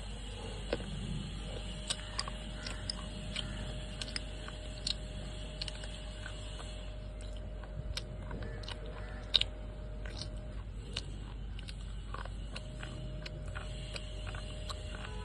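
Wet slate pencils being bitten and chewed: a string of irregular sharp crunches, with one much louder snap about nine seconds in.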